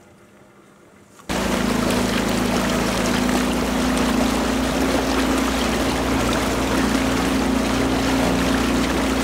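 Motor running steadily aboard an electrofishing boat, a constant hum with a low rumble; it cuts in suddenly about a second in.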